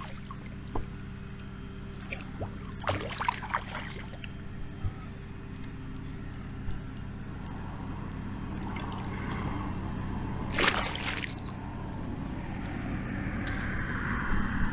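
Water splashing as a hooked pike thrashes at the surface, with two louder splashes, about three seconds in and near eleven seconds.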